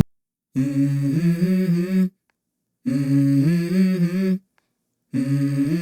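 Music: a voice humming a short tune in three phrases, with dead silence between them, the third starting near the end.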